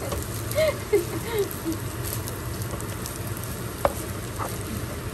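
Fried rice sizzling in a nonstick pan as it is stirred and turned with a wooden spatula, with one sharp tap about four seconds in.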